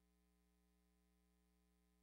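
Near silence: only a very faint, steady hum, with no game or crowd sound.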